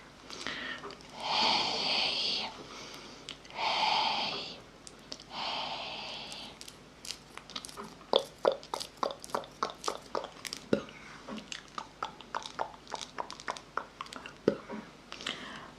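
Close-miked ASMR mouth sounds: three long breathy hisses, then a fast run of wet mouth clicks and tongue pops, several a second.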